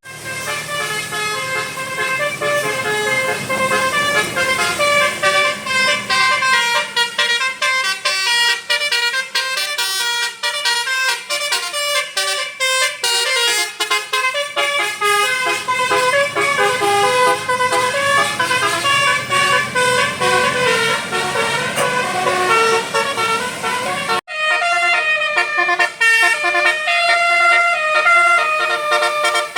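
Bus 'telolet basuri' musical air horn playing a tune in quick stepped notes, with a low rumble under the first few seconds. It cuts off abruptly about 24 seconds in and another horn tune follows.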